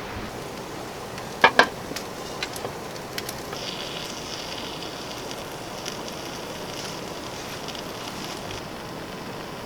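Steady hissing with scattered crackles and two sharp snaps close together about a second and a half in; a higher hiss joins from about three and a half seconds and fades near the end.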